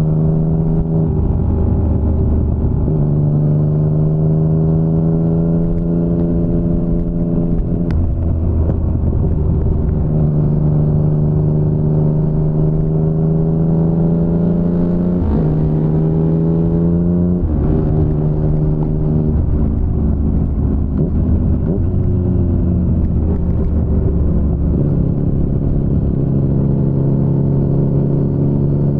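2019 Yamaha MT-09's three-cylinder engine running through an Akrapovic carbon full-system exhaust while the bike is ridden. The engine note climbs gradually, then drops abruptly twice about halfway through before climbing again.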